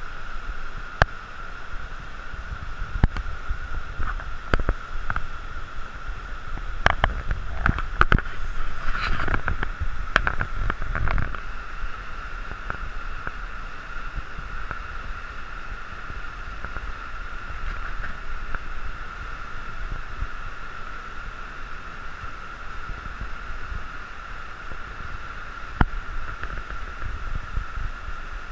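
River rapid in flood, whitewater rushing steadily over boulders. A short stretch of knocks and low rumble comes about a third of the way through, with a few single clicks elsewhere.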